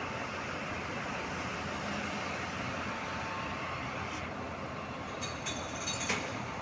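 Steady running noise of a large diesel haul truck, with a few sharp metallic clicks about five to six seconds in.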